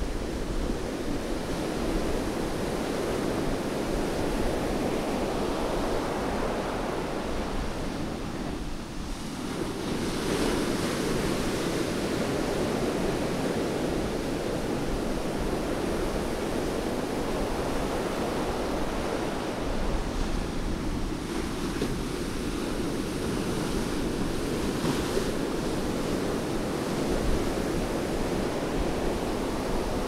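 Rough sea surf breaking and washing up a sandy beach in a continuous rush of white water, swelling louder as a wave breaks about ten seconds in.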